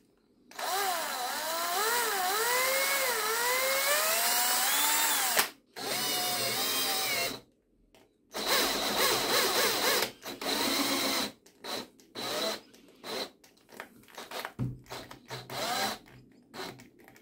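iMAX 24V cordless drill with a step drill bit boring into hardboard: the motor whines under load, its pitch rising and dipping as the bit cuts. It stops and restarts twice, then runs in a string of short trigger bursts near the end.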